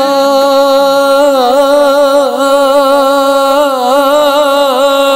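A man singing an Urdu naat, holding one long note through the gap between lines. The note is steady at first, then wavers up and down in ornaments from about a second in.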